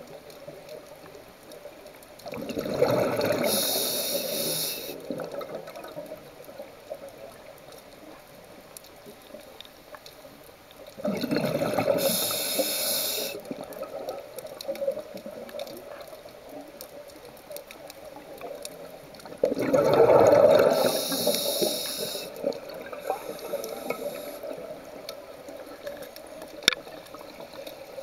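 A scuba diver breathing through a regulator underwater: three breaths, about eight seconds apart. Each is a burst of bubbling and hissing, with a low wash of water noise between them.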